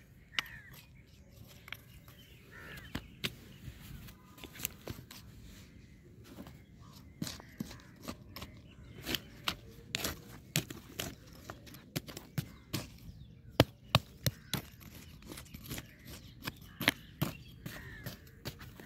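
Dry, cloddy soil scraped and broken up during hand weeding of a crop bed: irregular crunches and sharp knocks, about one or two a second, coming thicker after the first few seconds.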